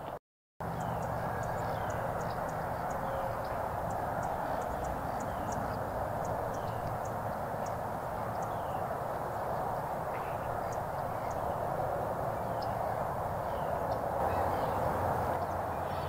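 Thin, high bird calls repeating about once a second, faint over a steady outdoor background hiss and rumble, with a brief dropout just after the start.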